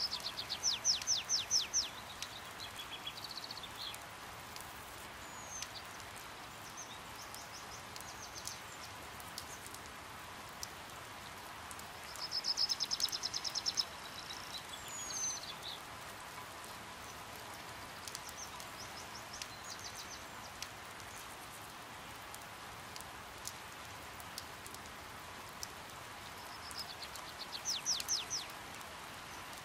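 Hummingbirds chattering: rapid, high twittering trills in three louder bursts, near the start, about halfway and near the end, with scattered short squeaky chips between. A steady hiss of rain runs beneath them.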